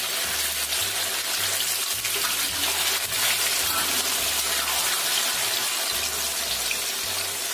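Pieces of tofu deep-frying in hot oil over medium heat: a steady sizzle with small crackles and spits.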